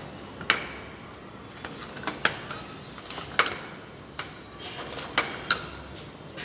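Sharp, irregular clicks and taps, about nine in six seconds, over a faint steady outdoor hiss.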